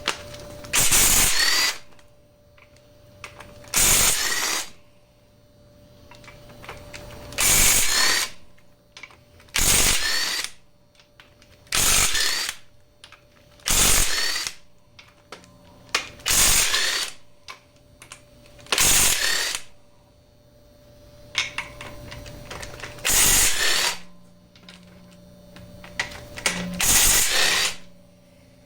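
A power tool, such as an impact driver or power ratchet, spinning in about ten short bursts of under a second each, a few seconds apart, as it loosens the main bearing cap bolts of a Chevy LS 5.3 V8 block.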